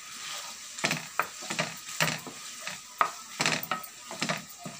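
Prawns sizzling in a nonstick frying pan while a wooden spatula stirs and scrapes them, in irregular strokes about two a second over a steady frying hiss.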